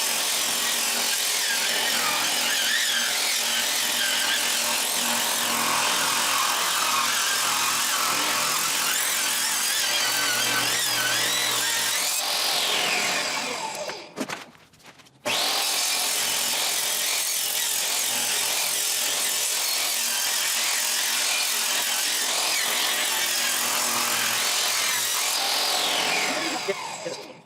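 Electric power tool motor running loudly twice, each run starting suddenly and ending with the motor winding down in pitch, with a short gap between the two runs.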